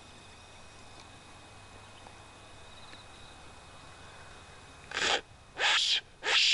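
Three short, loud, breathy blasts on a Silva fox whistle, a mouth-blown predator call, starting about five seconds in, over a quiet background with a faint steady high hum.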